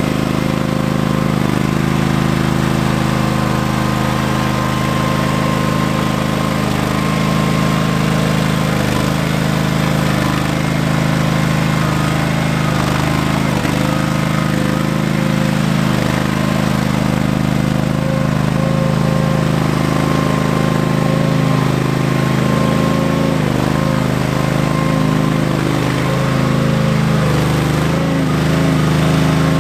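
Ingersoll 7020L garden tractor engine running steadily at an even speed while the tractor drives and works its front loader.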